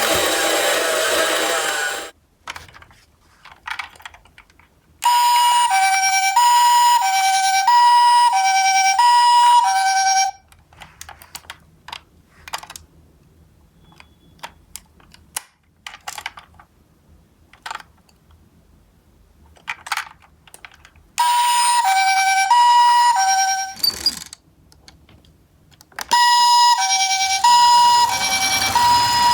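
Japanese-style two-tone hi-lo ambulance siren ('pee-po') alternating between two notes, sounding in three spells. Scattered light clicks and knocks come between the spells, and a loud noisy rush fills the first two seconds.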